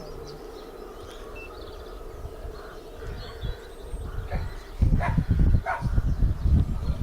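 A dog giving a few short whimpering yips over a steady faint hum. Loud low rumbling sets in about five seconds in.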